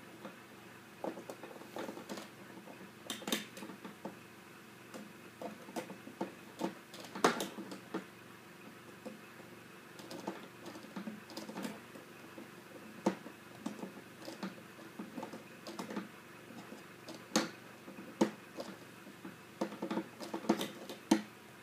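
Irregular small clicks, taps and scrapes of a screwdriver and hands working a screw out of a printer's plastic housing.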